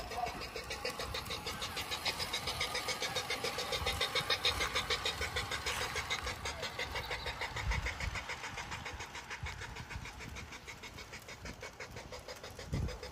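G-scale Bachmann Big Hauler 4-6-0 model steam locomotive running along garden track with a cattle car in tow. It makes a fast, even clatter that grows quieter in the second half as the train runs away.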